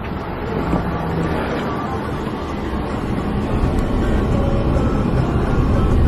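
All-wheel-drive Hyundai diesel car driving, a steady rumble of engine and road noise that grows a little louder.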